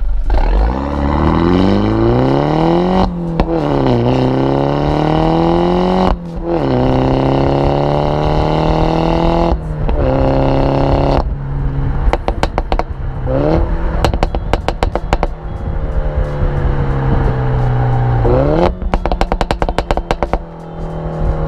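MINI John Cooper Works' turbocharged four-cylinder engine through its John Cooper Works Pro exhaust, pulling up through the gears with a drop in revs at each upshift, then holding steady revs. From about halfway on, the exhaust crackles and pops repeatedly on the overrun, with a rev blip near the end.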